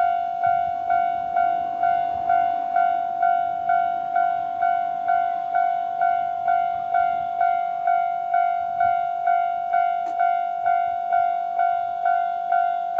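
Japanese level-crossing electronic alarm bell ringing its normal 'kan-kan' warning: one steady ringing tone struck over and over at about two strikes a second.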